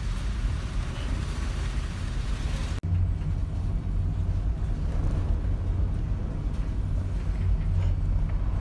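Stormy sea: wind and surf rushing, with heavy wind rumble buffeting the microphone. The sound cuts out for an instant about three seconds in and comes back deeper, with less hiss.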